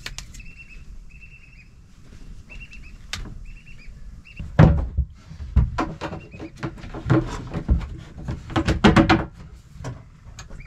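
Knocks and thumps of hands working on a plastic propane locker inside a wooden boat's hatch. They are loudest about halfway through. Before them there is a run of short, high chirps.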